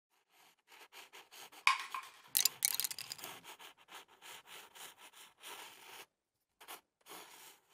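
A run of short, quick scratching strokes, like a pencil sketching on paper, with the loudest strokes between about two and three seconds in and a brief pause near six seconds.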